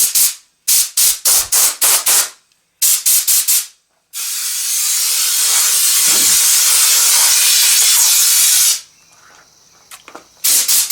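Compressed-air blow gun blowing sawdust out of a freshly routed dado: a quick run of short puffs, then one long blast of about four and a half seconds, then more short puffs near the end.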